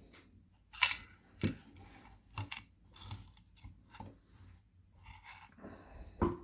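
Small metal lockpicking tools and a pinning tray being picked up and set down on a work surface: a string of irregular clicks and clinks, the sharpest about a second in and just before the end.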